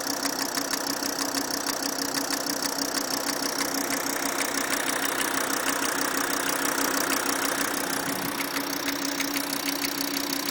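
Volkswagen Crafter's 2.5 TDI five-cylinder diesel engine idling, with a fast, even ticking knock running through it. This is the knock the owner is showing.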